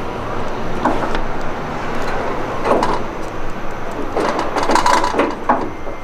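Irregular metal clanks and scraping of steel suspension parts being handled and fitted under the truck: a handful of short knocks over a steady shop background noise, busiest in the second half.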